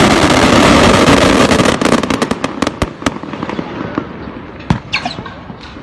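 Fireworks going off: a dense, loud run of rapid crackling bangs for about two seconds, then separate pops that thin out and fade, with a short whistle near the end.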